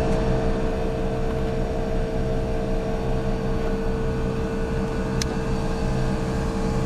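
Outdoor air-conditioning unit running with compressor 1 on: a steady machine hum with a held whine tone. There is a faint short click about five seconds in.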